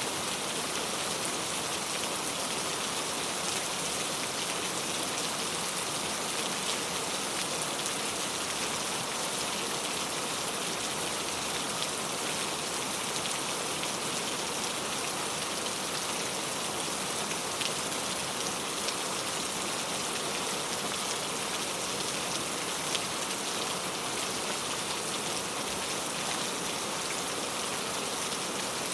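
Steady rain falling, a constant hiss of many drops with scattered individual drop patters.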